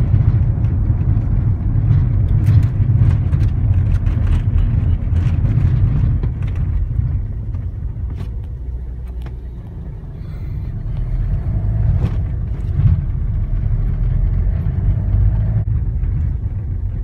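A car driving, heard from inside the cabin: a steady low rumble of engine and road noise, with scattered short knocks and rattles.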